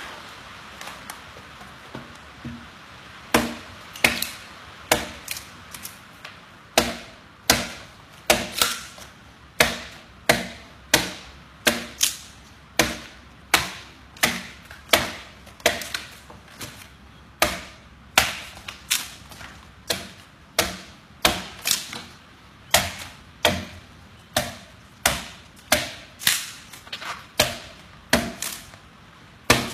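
Hand adze chopping into a wooden slab, a steady rhythm of sharp strikes a little faster than one a second, starting about three seconds in.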